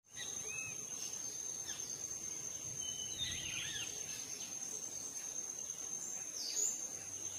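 Outdoor ambience: a steady high-pitched insect trill, like crickets, with a few short bird chirps scattered through it.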